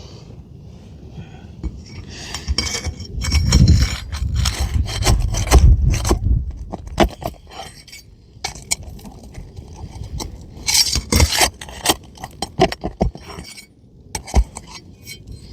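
Roof shingles being pried up and unsealed: a tool scraping and rubbing against the gritty shingles, with scattered clicks and knocks. The scraping is heaviest a few seconds in and again about eleven seconds in.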